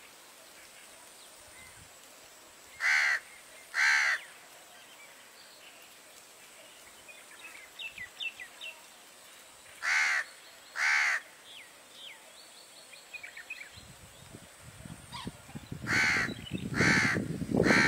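Loud, harsh bird calls, each about half a second long, come in groups: two calls a second apart, twice, then three together near the end, with faint short chirps in between. A low rumbling noise builds over the last few seconds.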